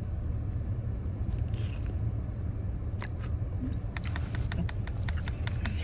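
Small eating sounds: a few clicks and smacks, then a quick run of them near the end, over the steady low hum of a car interior.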